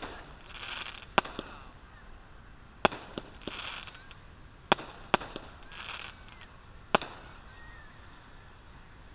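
A "Dirty Deed" 200-gram consumer firework cake firing: about six sharp bangs spaced one to two seconds apart, with short bursts of crackle between several of them. The bangs stop about seven seconds in.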